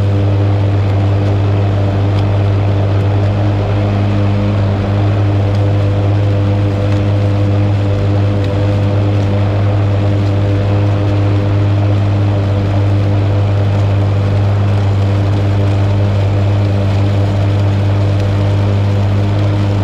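Gas lawn mower engine running at a steady, constant speed while cutting grass: an even, unchanging drone.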